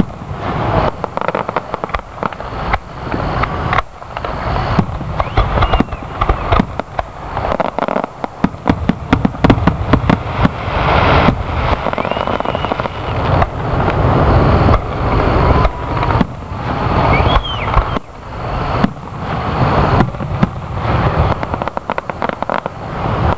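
Aerial fireworks bursting in a rapid barrage: overlapping booms and crackling reports with hardly a pause, with dense runs of quick cracks about eight seconds in and again near the end.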